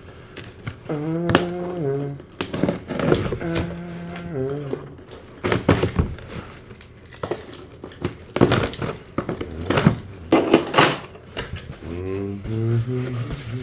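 A parcel's packaging being handled and pulled open by hand: rustling and crinkling with scattered knocks, loudest just past the middle. A man hums short wordless tones three times, each held about a second.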